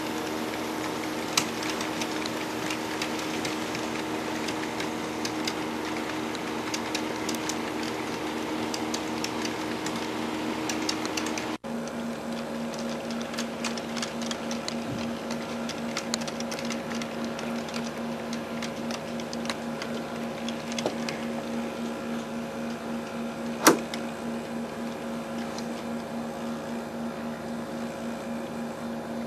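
HO scale model trains running along the track: a steady whirring motor hum with many light clicks from the wheels, and one sharp click about three quarters of the way through. The hum changes pitch suddenly about 12 seconds in.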